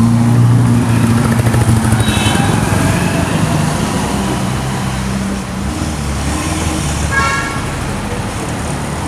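Road traffic with a car engine running loud at the start, easing off after about two seconds. Vehicle horns toot briefly about two seconds in and again about seven seconds in.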